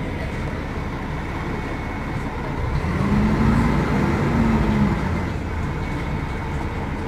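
Mercedes-Benz O500UDA bus engine running under a Caio Millenium BRT body, a steady rumble. About three seconds in it revs up with a rising whine-like tone, holds for about two seconds, then eases back.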